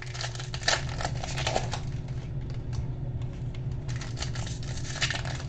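Trading cards and foil pack wrappers being handled: irregular light clicks, taps and crinkles, over a steady low hum.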